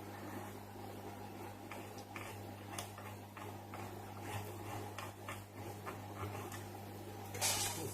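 Steady low electrical hum with scattered light clicks and ticks, and a short louder rustle near the end.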